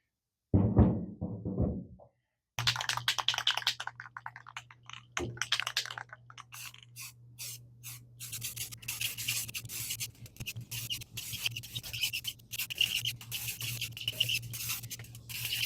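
Rapid, irregular scraping strokes over a steady low hum, starting suddenly after a brief dropout about two seconds in.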